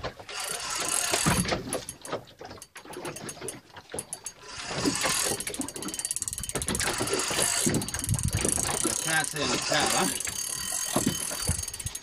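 Large spinning fishing reel, a Shimano Biomaster 10000SW, clicking in dense rapid ticks under load while a hooked shark is fought on the line. There is a short spell about a second in, and a long run from about four and a half seconds in.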